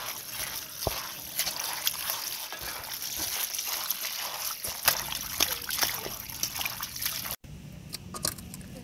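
Water running from a hose onto pickled mustard greens in an aluminium colander, with splashing and small clicks as hands squeeze and turn the wet leaves. The greens are being rinsed to take out some of their sourness. The water cuts off suddenly near the end, leaving a quieter background.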